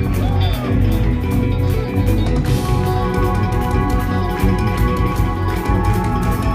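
Loud live instrumental progressive metal: guitars holding ringing chords over busy drumming with frequent cymbal and drum hits.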